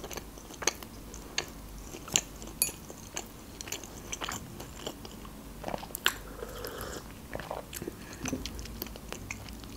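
A person chewing food close to the microphone, with scattered wet mouth clicks and smacks, and a sip of drink partway through.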